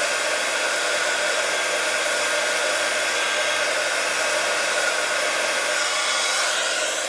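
Handheld hot-air tool blowing steadily, a loud even rush with a faint steady whine in it. It is switched off at the very end and its fan winds down.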